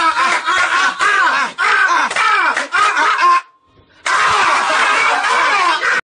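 Loud, shrill voice audio with strongly swooping pitch, screaming and wailing, in two stretches split by a short pause about three and a half seconds in.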